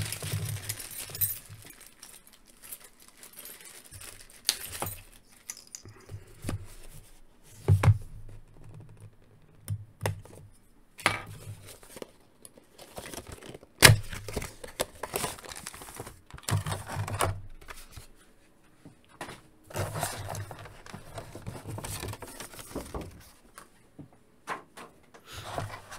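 A cardboard action-figure box being handled and opened, and its clear plastic tray slid out: intermittent scraping and rustling of card and plastic, with several sharp clicks and taps, the loudest about halfway through.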